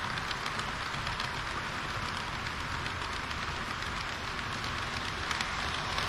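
HO-scale model trains rolling past close by on plastic roadbed track: a steady rushing rattle of wheels on rails, with light clicks over the rail joints.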